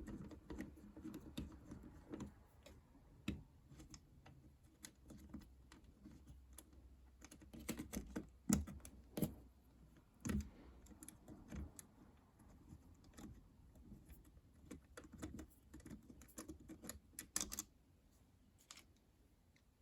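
Irregular small clicks and scrapes of a screwdriver backing out the mounting screw of a wall switch from its electrical box, with a few louder clicks about halfway through.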